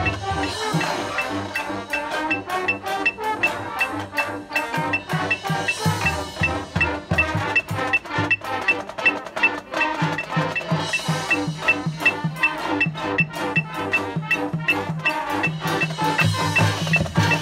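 Marching band music with drums, over a steady metronome click about three times a second.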